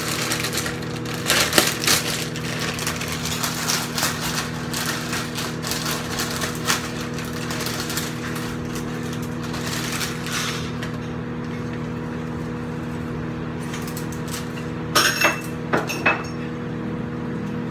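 Noodles being tipped from a crinkling plastic bag into a pot of broth, a dense rustling for about ten seconds, then a few sharp clinks of a metal utensil against the pot near the end as the noodles are stirred. A steady hum runs underneath.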